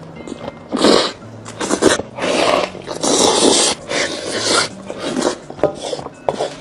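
Noodles being slurped and chewed close to the microphone, in a string of irregular noisy bursts of about half a second each; the longest comes a little after three seconds in.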